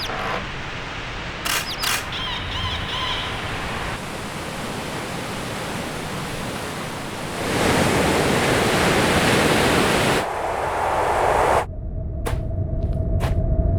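A run of ambience and foley sound effects: a steady rushing noise with a couple of clicks, a louder rushing stretch a little past the middle, then a sudden switch to a steady hum with a few sharp clicks.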